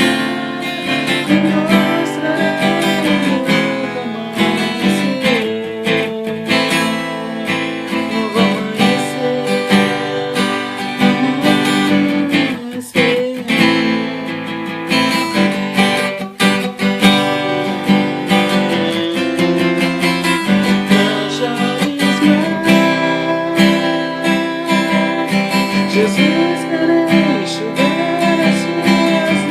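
Music with strummed acoustic guitar and a melody line over it; no words are sung.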